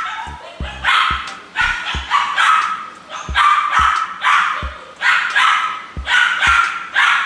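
Small puppy barking over and over, about a dozen high, sharp barks in quick pairs and runs: excessive barking.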